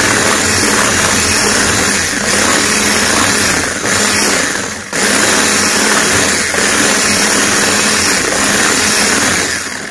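Electric hand mixer running at speed, its beaters whirring through cake batter of egg, sugar and oil in a glass bowl. The sound sags briefly about halfway through, then the mixer is switched off at the very end.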